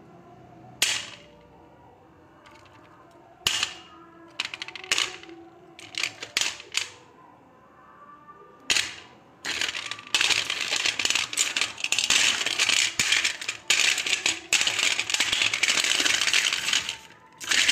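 Chunks of roasted clay land one at a time in a stainless steel plate with sharp clinks. From about ten seconds in, the pieces rattle and clatter against the metal without a break as the plate is shaken.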